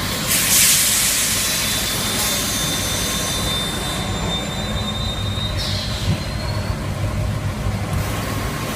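Tape-cutting machine running with a steady low hum. A loud hiss comes about half a second in and lasts over a second, and a thin high whine runs through the middle.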